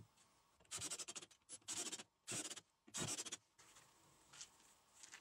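Pine slats sliding and rubbing against each other and the wooden frame: four short scratchy strokes, each about half a second long.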